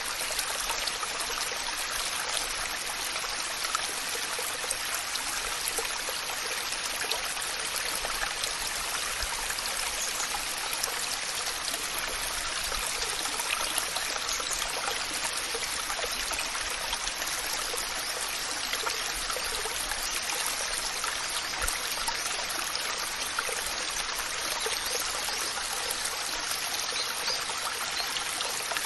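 Waterfall: water falling and splashing in a steady, unbroken rush, mostly hissing and high, with small splashes flickering through it.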